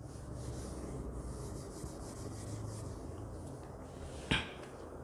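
Board duster rubbing across a whiteboard, a steady scrubbing for about four seconds as the board is wiped clean, then a single sharp knock.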